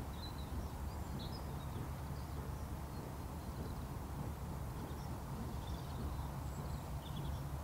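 Wind rumbling steadily on the microphone, with faint, scattered high bird chirps.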